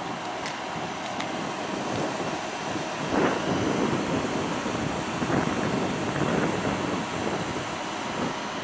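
Passenger train rolling past the platform: a steady rumble of wheels on rails that swells about three seconds in, with a few short clacks.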